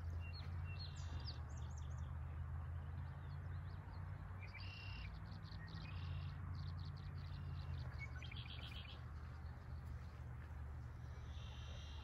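Small birds chirping in short bursts, about five calls spread through the stretch, over a steady low rumble.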